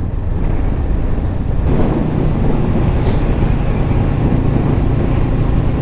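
Honda CBR500R's parallel-twin engine running as the motorcycle accelerates through town, heard from the rider's seat with wind rushing over the microphone. The wind and engine noise get a little louder just under two seconds in.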